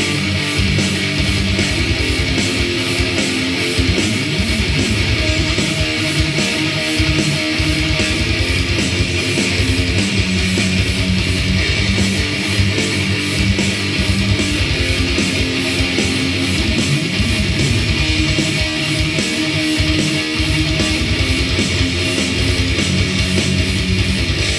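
Heavy metal song playing: a distorted electric guitar riff over fast programmed drums, with rapid kick-drum hits throughout.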